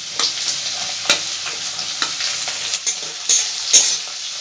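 Chopped onions sizzling in hot mustard oil in a kadai, with a spatula stirring and scraping against the pan in short sharp strikes over the steady sizzle, the loudest a few seconds in.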